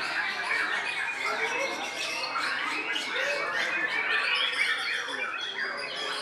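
White-rumped shamas singing: a dense, continuous tangle of overlapping whistles, trills and chattering notes from several caged birds at once.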